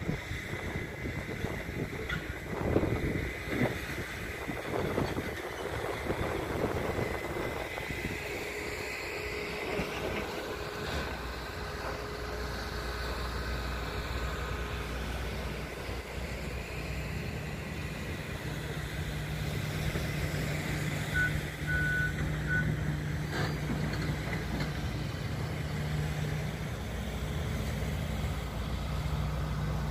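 Gusty wind noise at first. From about halfway a vehicle engine runs steadily with a low drone, and a few short high beeps sound about two-thirds of the way in.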